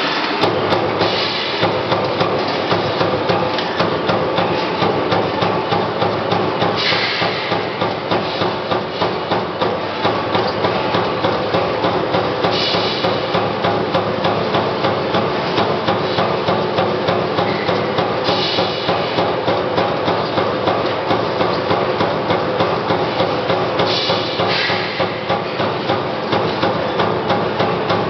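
CNC turret punch press hammering through sheet steel in a rapid, unbroken run of punch strokes, punching a row of holes along the sheet. A short hiss recurs about every six seconds over the punching.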